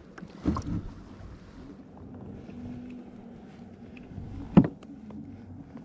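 Kayak moving slowly on the water while trolling, with a faint steady hum and light ticks. There is a short rustle about half a second in, and a single sharp knock about four and a half seconds in.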